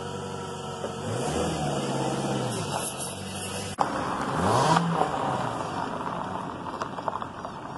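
A small hatchback car driving away, its engine pitch rising as it speeds up about a second in and again about four seconds in, then fading as it draws away.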